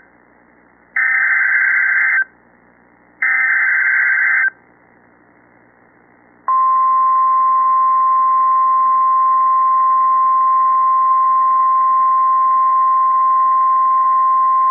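Emergency Alert System SAME header: the end of one shrill digital data burst, then two more about a second long each, a second apart. After a two-second gap, the NOAA Weather Radio 1050 Hz warning alarm, a single steady tone, begins about six and a half seconds in. It signals that a severe thunderstorm warning is about to be read.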